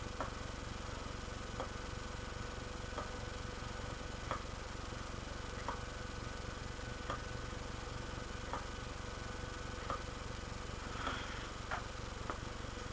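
Faint short clicks recurring about every second and a half over a steady low electrical hum and a thin high whine.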